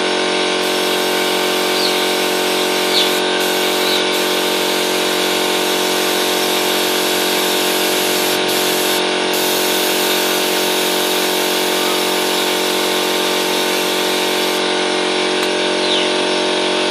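Air compressor supplying a paint spray gun, running steadily: a constant motor hum with hiss above it.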